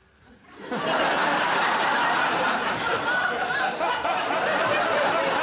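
Studio audience laughing hard, swelling up under a second in and holding loud and steady.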